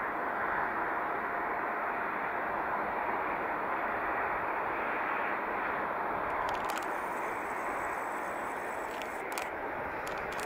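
Airbus A330 jet engines running steadily at low thrust as the airliner taxis on the ground. A few faint, sharp clicks come about two-thirds of the way in and again near the end.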